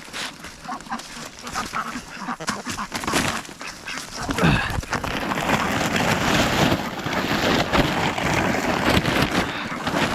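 Ducks quacking, with a loud steady noise coming in about four seconds in and covering the rest.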